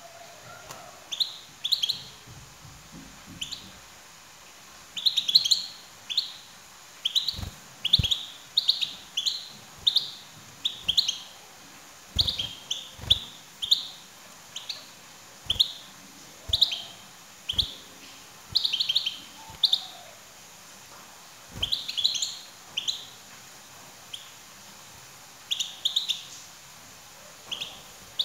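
European goldfinch giving short, clear chirping calls, singly or in quick clusters, about one a second, with a few dull thumps among them.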